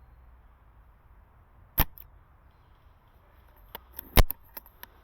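Silverback SRS airsoft sniper rifle firing: two sharp snaps about two and a half seconds apart, with a few lighter clicks around the second.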